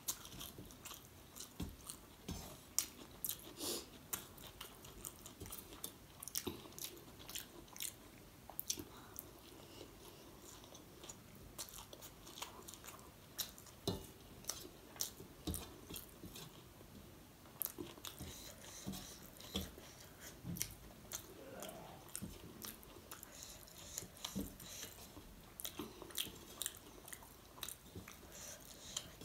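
Close-miked chewing and mouth sounds of a person eating vegetable chowmein noodles, with many short, irregular clicks throughout.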